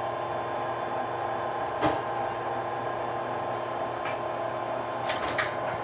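Cincinnati-Milacron R-77 universal cylindrical grinder running its automatic pick cycle: a steady machine hum with several fixed tones, a sharp click about two seconds in and a few lighter clicks near the end.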